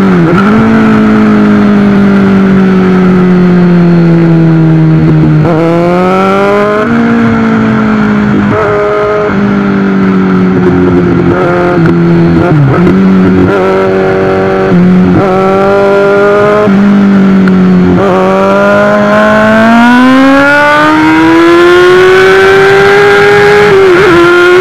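Inline-four sport motorcycle engine under acceleration. Its pitch climbs and then drops at each gear change, several times, before a long steady climb through the second half.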